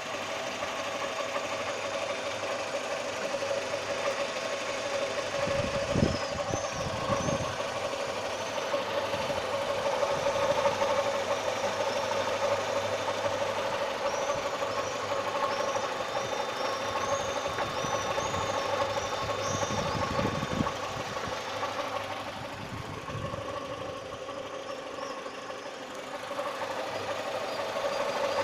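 Chevrolet Lacetti 1.4's four-cylinder petrol engine running steadily at idle with an extraneous noise that appeared after the timing belt was replaced. There are a few short, high chirps and a few brief knocks.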